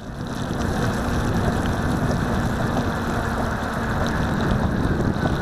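Steady rushing noise of a Solowheel electric unicycle's tyre rolling through standing water on wet pavement, with a faint steady hum underneath.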